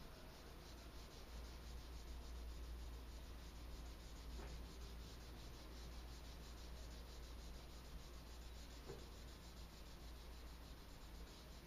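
Pencil shading on sketchbook paper: faint, steady rubbing of graphite strokes, over a low steady hum.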